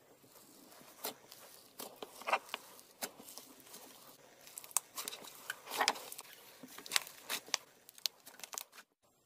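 Fingers pressing and squeezing purple slime in a plastic tub, giving irregular sharp clicks and crackles that cut off suddenly near the end.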